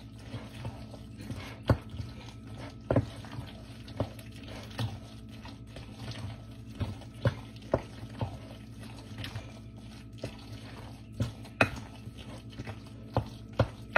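A wooden spoon stirring a thick, creamy pasta and chicken mixture in a glass bowl: wet squelching broken by irregular sharp knocks of the spoon against the glass, over a low steady hum.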